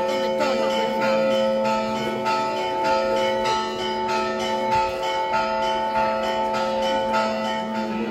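Church bells pealing, with rapid overlapping strokes that keep the ringing tones sounding without a break.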